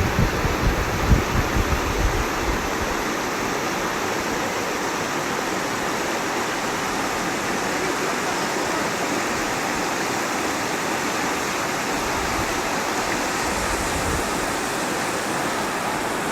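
Rushing water, a steady, unbroken rush like a waterfall or fast stream, with a few low bumps of wind or handling on the microphone in the first couple of seconds.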